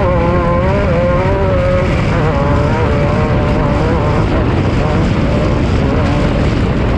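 Off-road race vehicle's engine running hard, its note wavering up and down with the throttle over a heavy, constant rumble; the engine note is clearest in the first couple of seconds before sinking into the rumble.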